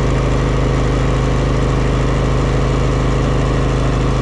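DuroMax XP16000iH 16 kW inverter generator's engine running steadily while carrying the household load, at about 7.6 kW.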